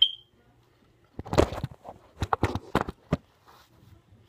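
Handling noise from a phone held against a doll's face: a sharp click at the start, then a string of irregular knocks and rubs about a second in, lasting a couple of seconds.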